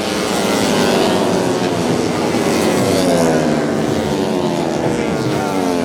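Several 150cc four-stroke underbone racing motorcycles running at high revs together. Their engine notes overlap and keep sliding down and up in pitch.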